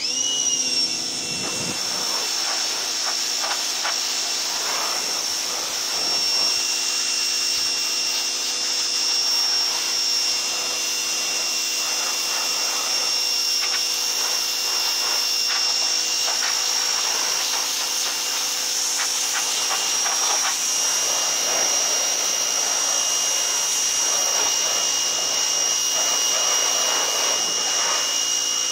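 Ryobi 1700 PSI electric pressure washer starting abruptly and running steadily with a high whine, its water jet hissing as it sprays.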